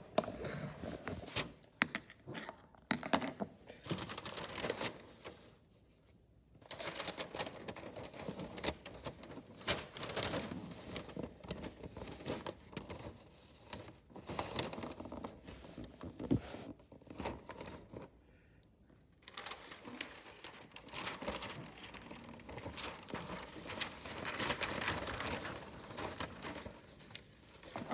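Wrapping paper rustling and crinkling as it is handled and folded around a cardboard box, in irregular bursts with two short lulls, about six seconds in and again near nineteen seconds in.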